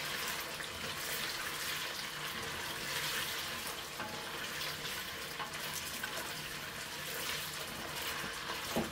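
Chopped carrots and bell peppers sizzling in oil in a stainless steel pot. The frying hiss is steady, with a few light scrapes and taps from a wooden spoon stirring them.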